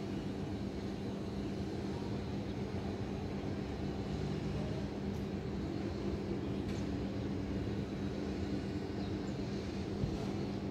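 City ambience: a steady low rumble of distant traffic with a constant low hum running under it, and a faint tick about ten seconds in.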